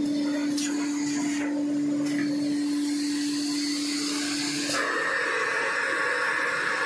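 Automatic facial tissue bundling machine running: a steady machine hum and whir. About five seconds in it changes to a hissier, even noise.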